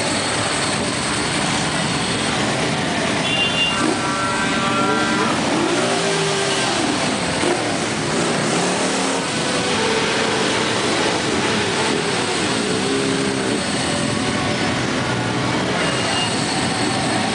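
A group of motorcycle engines running together at low speed, with several revs rising and falling in the middle.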